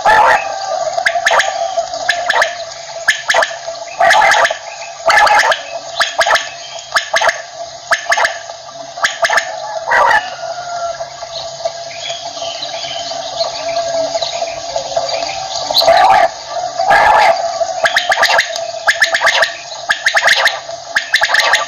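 Common quail (batair) calls: short, sharp notes repeated irregularly, about one or two a second, over a steady tone underneath.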